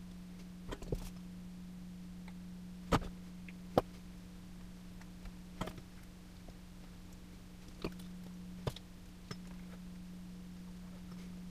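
Scattered light clicks and taps, about seven in all, from pickup leads, parts and tools being handled in an electric guitar's body cavity, over a steady low hum.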